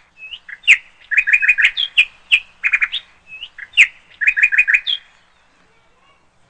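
Small bird chirping: a repeated phrase of one sharp high note followed by a quick run of four or five shorter chirps, which stops about five seconds in.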